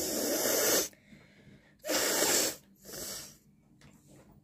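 A person blowing her nose hard, three times: two long forceful blows about two seconds apart, then a shorter, weaker one right after the second.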